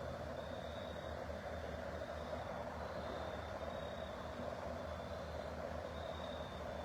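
Steady low rumble of a heavy engine idling, with faint short high-pitched tones repeating irregularly over it.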